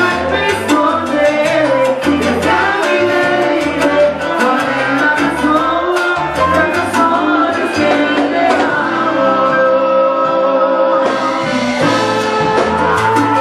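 Live salsa orchestra playing with a lead vocal: regular percussion strikes over a moving bass line and sustained instrumental notes.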